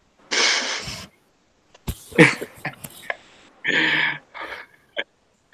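A man's breathy chuckles and sharp exhales in several short bursts, with a short voiced sound about four seconds in.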